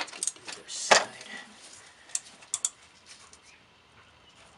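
Ratchet wrench and socket clicking and clanking while loosening a thermostat housing bolt, with scattered clicks and one louder clank about a second in.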